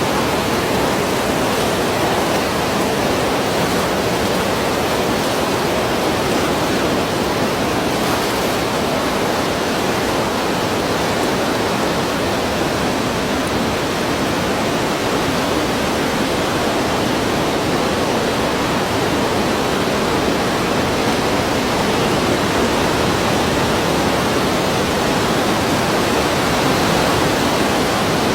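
Sea waves heard as a steady, even rush of surf, with no single wave crash standing out.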